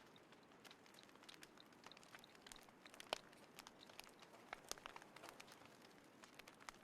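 Small wood fire in a folding fire pit crackling faintly, with scattered irregular pops, the loudest about three seconds in.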